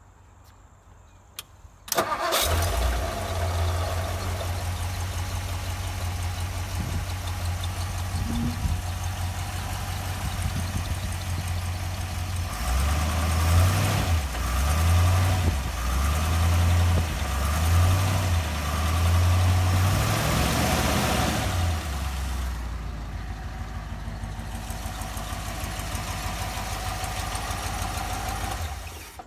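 1955 Ford Thunderbird's Y-block V8, fitted with a four-barrel carburettor, starting almost at once about two seconds in and then running. In the middle it is blipped up and down about half a dozen times, then settles back to a steady idle.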